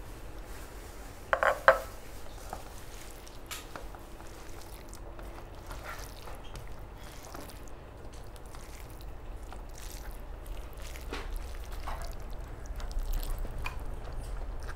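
Dishes clinking as a meal begins: a sharp double clink about a second and a half in, then scattered soft taps and clicks of food being handled on a plate, over a low steady hum.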